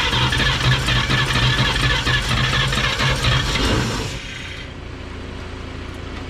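The 1954 Chevrolet 3100's straight-six being cranked over by its starter without catching, in a steady rhythmic churn that stops abruptly about four seconds in, with a quieter steady low hum left after it. The engine is hard to start after years of sitting and is being fed by a makeshift fuel system.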